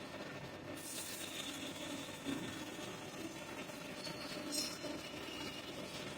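Workshop machine motor running steadily, with two brief higher hissing sounds about one second and four and a half seconds in.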